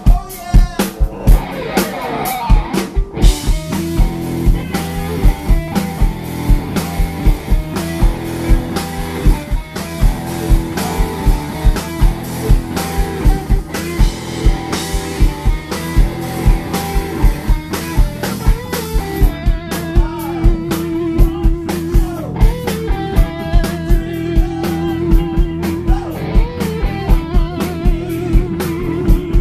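A live rock band playing: electric guitars and bass over a drum kit keeping a steady beat of about two hits a second.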